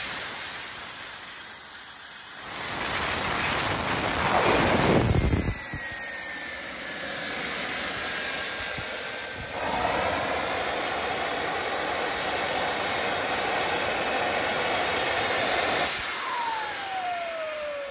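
Turbocharger-based homemade jet engine running with a steady high hiss and whine. Two loud low surges come about three to five seconds in, and it runs louder again from about ten seconds. Near the end the rush drops away and the turbine's whine falls steadily in pitch as it spools down.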